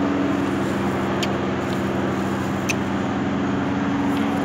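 Steady railway-platform din: a continuous low machine drone over an even wash of background noise, with a few faint clicks.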